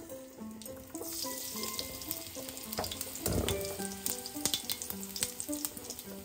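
Mustard seeds sizzling in hot oil in a cast-iron kadai, with many sharp little crackles and pops, and a brief low rush about three seconds in. Background music with a slow stepped melody plays underneath.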